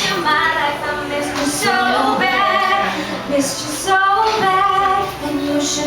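A woman singing a pop melody live, with sustained, gliding sung notes over guitar accompaniment.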